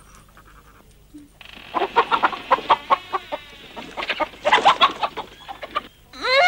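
A chicken clucking and squawking in agitation, fast and broken, as it is caught for slaughter; it starts about a second and a half in. Near the end a woman's muffled moan begins.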